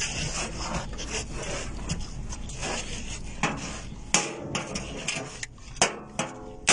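Footsteps scuffing along a bus aisle floor, with rubbing noise and a few sharp knocks, over a low steady hum that drops away about four seconds in.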